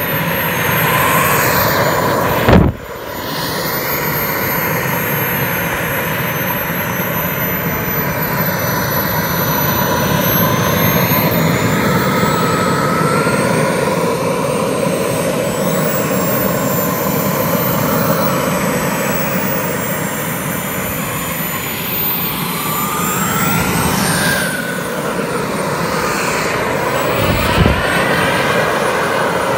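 Model jet turbine engine (JetsMunt M70XBL in an HSDJETS L-39 RC jet) running on the ground: a loud, steady rush with a high whine that slowly rises and falls in pitch. A sharp knock about two and a half seconds in, and a smaller one near the end.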